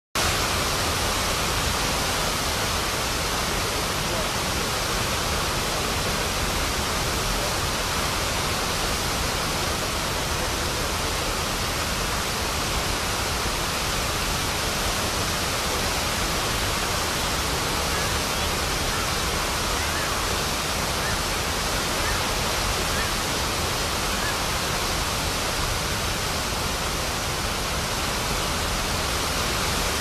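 Water spilling over a low dam spillway and crashing onto the rocks below, a steady, even rush of falling water.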